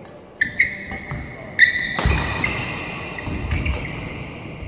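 Badminton rally: sudden squeaks of shoes on the court floor, rackets striking the shuttlecock and thudding footsteps, echoing in a large sports hall. Sharp squeaks start about half a second and a second and a half in, with heavier thuds from about two seconds in.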